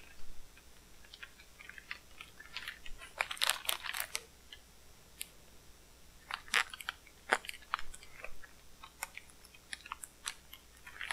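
Packing tape and plastic air-packing wrap being cut and picked open with a small knife, giving irregular crinkles and crackles, with bunches of sharper crackles about three and a half seconds in and again past the halfway point.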